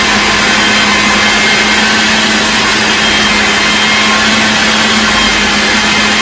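Kenwood Multi Pro food processor motor running steadily at full speed, with a steady hum. Its blade is finely grinding raw lamb mince with onion, green chillies, mint and coriander.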